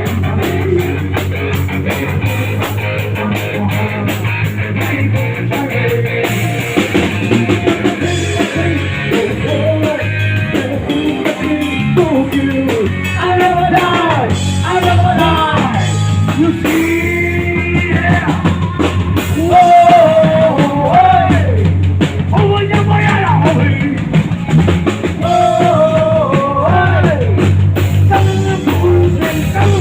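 Rock music with drum kit, electric guitar and bass, and a singing voice or lead guitar line over it.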